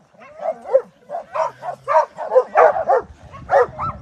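Dog giving a quick run of short yelps and whines, about three a second; a low rumble joins near the end.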